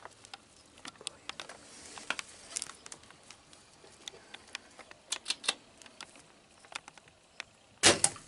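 Scattered small clicks and rustles, with one louder rustling bump near the end.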